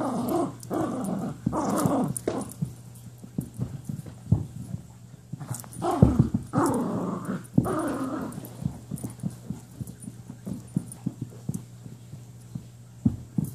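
Small poodle growling in play: a run of short growls in the first two seconds and a longer growl about six seconds in, with light thumps and scuffles of paws and a hand on carpet in between.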